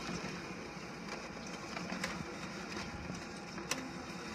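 Office laser printer running steadily as it feeds out a long printout, with two sharp clicks from the mechanism.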